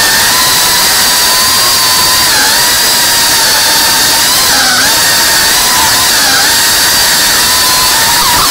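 FPV quadcopter's brushless motors and propellers whining steadily, the pitch dipping briefly several times as the throttle eases and comes back.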